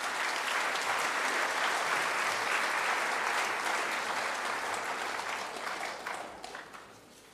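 Audience applauding, holding steady and then dying away near the end.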